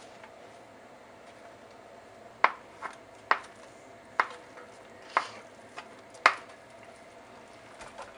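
A plastic meat tray knocking against a nonstick pot as ground beef is tipped out of it: a run of sharp knocks, about six loud ones within four seconds, with a few lighter taps between them.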